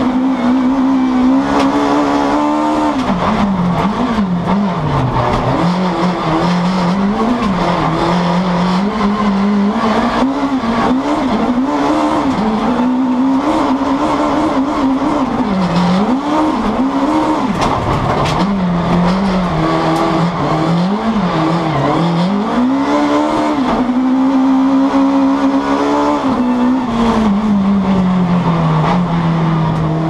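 Alfa Romeo MiTo RX Super 1600 rallycross car's naturally aspirated four-cylinder engine, heard from inside the cockpit at racing speed. The revs climb and fall over and over through the corners and gear changes, hold high for a few seconds near the end, then drop steadily.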